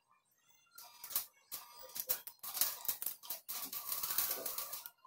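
Rice being washed by hand in an aluminium pot: grains and water swishing and rattling against the metal in quick, irregular strokes, starting about a second in.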